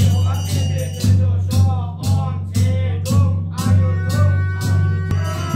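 Buddhist ritual music: a large ceremonial drum on a stand is beaten steadily about twice a second, with a low thump at each stroke, under chanting. A few steady ringing tones join in past the middle.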